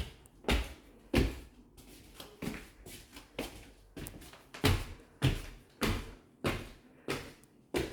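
Footsteps at a steady walking pace, a little under two steps a second.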